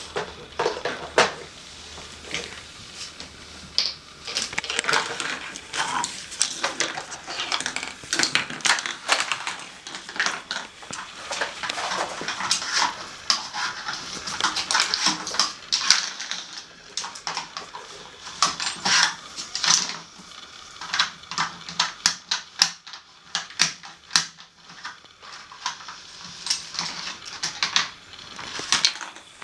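A dog working a hard-plastic treat puzzle with its nose, setting off irregular clacking and rattling of plastic pieces and lids, busiest in the middle and thinning out near the end.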